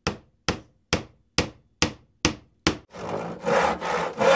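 Sound effects for an animated intro: seven evenly spaced sharp knocks, about two a second, then a rough scraping noise that swells several times from about three seconds in.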